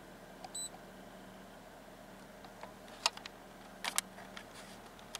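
Faint steady hum, with a short high electronic beep about half a second in and a few light clicks around three and four seconds in.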